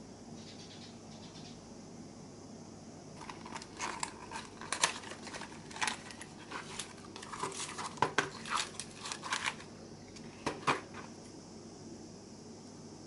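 Crackling and clicking of packaging being handled and opened: a cardboard box of Tamiya epoxy putty and its plastic-wrapped contents. It comes in a burst from about three to ten seconds in and ends with two sharp snaps.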